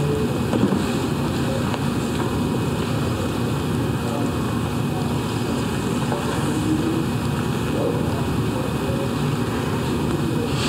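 Steady room noise, a low rumble with hiss, with a faint knock about half a second in.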